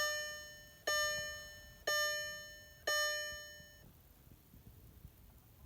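Dashboard warning chime of a 2003 Volkswagen TDI, four evenly spaced bell-like tones about a second apart, each fading, stopping about four seconds in, as the ignition is switched on for another glow-plug cycle.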